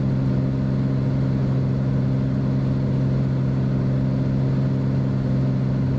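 Steady drone of a Beechcraft Bonanza's six-cylinder piston engine and propeller, heard inside the cockpit, with the prop control set full forward for the descent on final approach.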